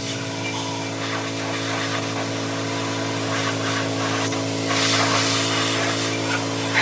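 Pressure washer running steadily, its motor droning under the constant hiss of the spray.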